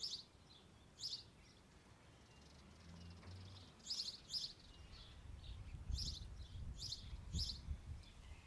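Birds chirping in short, high calls every second or so, over a faint low rumble that swells in the second half.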